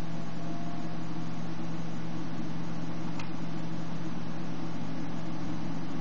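Steady electrical hum over an even hiss: the recording's background noise floor. A single faint click sounds about three seconds in.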